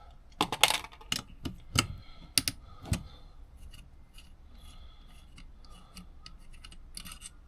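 Small metal parts and hand tools clicking and scraping on a motorcycle carburettor being dismantled: a run of sharp clicks and knocks in the first three seconds, then lighter scattered ticks.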